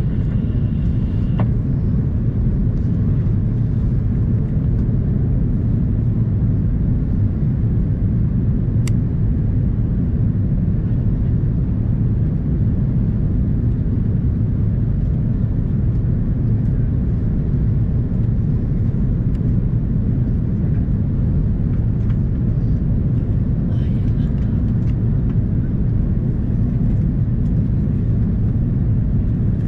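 Steady low drone of an Airbus A330-200 airliner cabin during descent, heard from a window seat behind the wing: airflow and its General Electric CF6-80E1 turbofan engines. A single faint click about nine seconds in.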